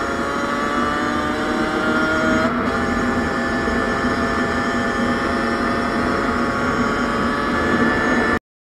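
MotorHispania Furia's 50cc two-stroke engine under way, its pitch rising steadily as it pulls. There is a gear change about two and a half seconds in, and wind buffets the helmet-mounted microphone. The sound cuts off abruptly near the end.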